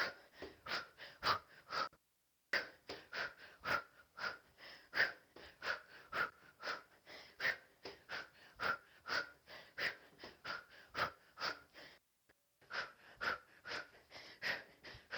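Sharp, breathy exhalations repeating about twice a second, a person breathing out hard with each kick and punch of a kickboxing combination. The sound cuts out completely for a moment twice.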